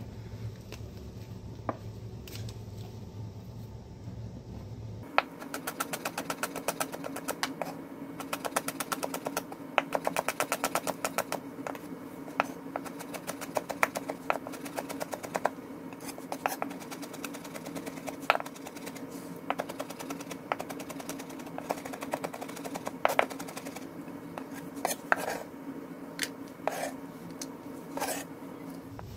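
Kitchen knife chopping rapidly on a cutting board, starting about five seconds in and going in quick runs of sharp knocks, as fresh garlic is minced for a peanut sauce.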